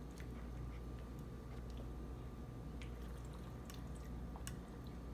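Water poured in a thin stream from a bottle into a glass blender jar packed with mango chunks: a soft trickle with scattered drips, over a steady low hum.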